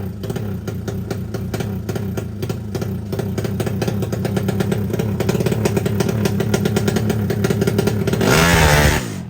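Single-cylinder drag-race motorcycle engine running at a steady idle with a rapid pulsing beat, then revved once near the end. The sound drops away just after the rev.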